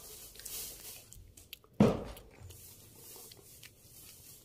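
A cat nosing and rubbing against the phone right at the microphone: soft rustling and a few small clicks, with one loud bump about two seconds in.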